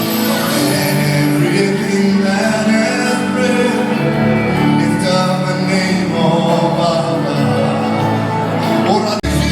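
Live gospel worship music with singing, held chords and sustained sung notes, in a large hall; the sound cuts out for an instant near the end and comes back with a fuller bass.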